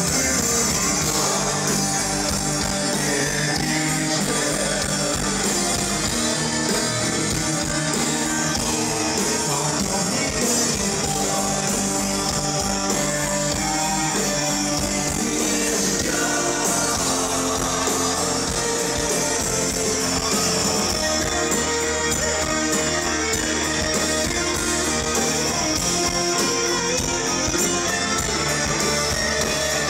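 Live rock band playing a song: electric guitar with a singer.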